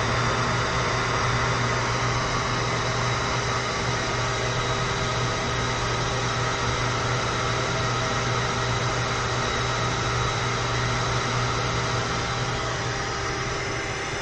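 Automatic self-service key-cutting kiosk running steadily while it cuts a duplicate key: a constant machine hum with a few steady tones, easing slightly near the end.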